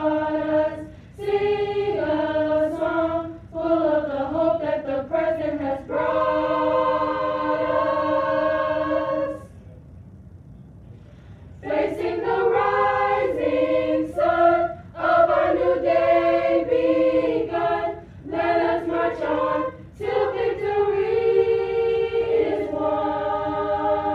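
A high-school choir of mixed voices singing together, in phrases with long held chords. It stops for about two seconds near the middle.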